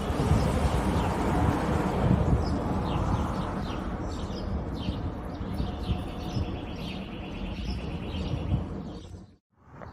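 Low rumble of an aircraft passing overhead, slowly fading away, with small birds chirping and trilling over it from about three seconds in. The sound cuts off abruptly near the end.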